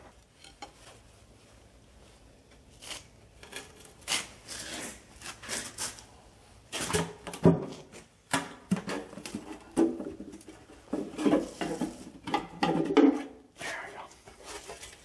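Metal knocks, taps and scrapes as the steel oil pan of a Ford FE 390 V8 is pried loose from the upturned block with a screwdriver and lifted off. Sharp clanks come every second or so after a quiet start.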